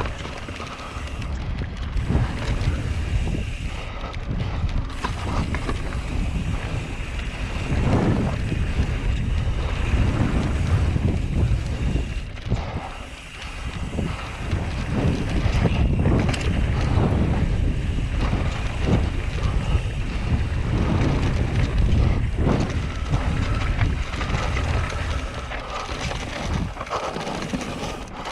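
Wind rushing over the microphone on top of the rumble of a mountain bike's tyres rolling fast down a dirt trail; the noise swells and eases with the ground and dips briefly about halfway through.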